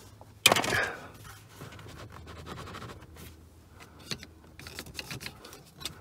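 Handling noise: a sudden loud clatter about half a second in, then faint scraping and light clicks.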